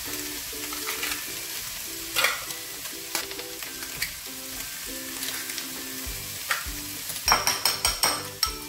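Steady sizzle of potatoes and tuna frying in a pan, with a few light taps as eggs are cracked into a bowl. About seven seconds in, a fork starts beating the eggs, clicking rapidly against the bowl.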